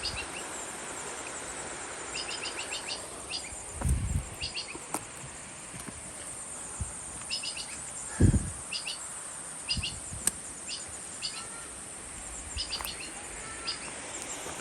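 Outdoor trail ambience: a bird calling in quick clusters of short chirps, repeated every second or so, over a steady high insect drone. A few low thumps sound at about 4, 8 and 10 seconds in, the one near 8 seconds the loudest.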